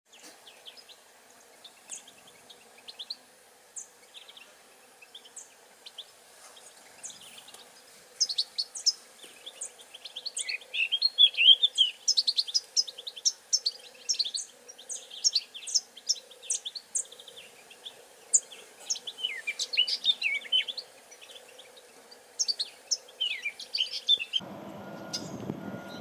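Male common linnet singing: a fast twitter of short high chirps and trills, sparse at first, growing denser and louder from about eight seconds in, then cutting off abruptly near the end.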